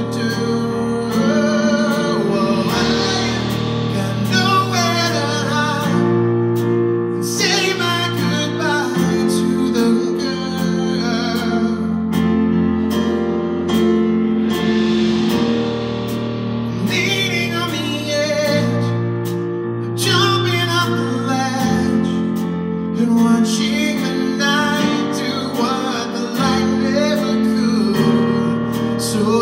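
Live music: a man singing a slow song into a microphone over acoustic band accompaniment with guitar and held chords.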